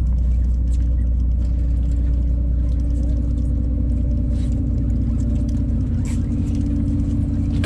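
Steady low engine drone aboard a sportfishing boat, with a few faint clicks and knocks.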